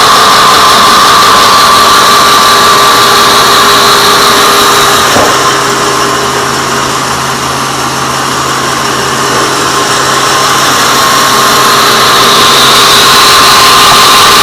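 Sawmill bandsaw running loud and steady with a constant high whine. There is a brief knock about five seconds in, after which it runs slightly quieter for several seconds before rising again.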